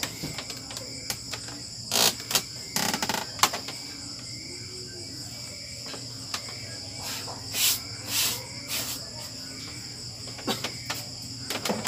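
Steady high-pitched chirring of crickets. It is broken by a few brief rustles and knocks, the loudest about two to three and a half seconds in.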